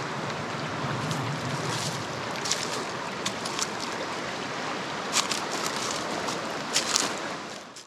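A blackwater creek running over small rapids: a steady rush of flowing water with a few short, sharper splashy sounds, fading out near the end.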